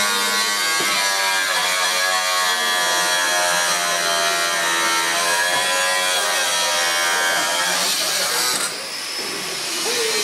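Handheld electric grinder cutting into steel, its motor whine sagging and rising in pitch as it is pressed into the work, then stopping near the end.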